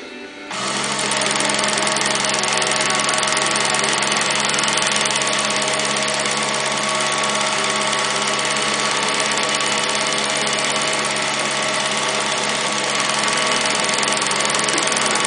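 Dürkopp Adler 4183i industrial cutting-and-sewing machine starting about half a second in, then running steadily at speed as it stitches and edge-trims leather. Its stitches come as a fast, even rattle over a steady motor hum.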